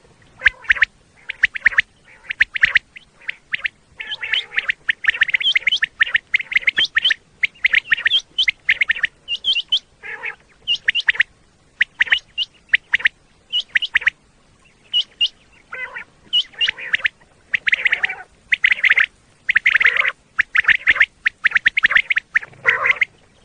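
Common quail calling over and over: quick runs of short, sharp notes, nearly continuous, with some lower, harsher notes mixed in.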